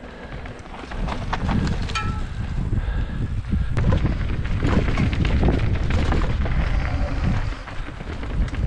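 Wind buffeting the microphone of a moving camera, a heavy low rumble that grows louder about a second in, with scattered knocks and rattles from riding over rough trail.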